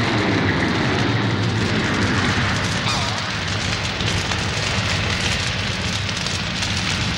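Steady rushing, hissing noise over a low hum, a sound effect of the battle's end. A faint tone slides downward about three seconds in.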